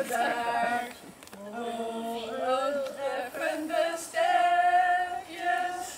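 Small group of amateur singers, mostly women, singing together unaccompanied in long held notes, with a short break about a second in.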